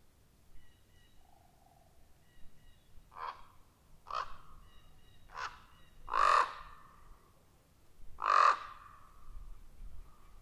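Common ravens calling: five short croaks over about five seconds, the last two the loudest.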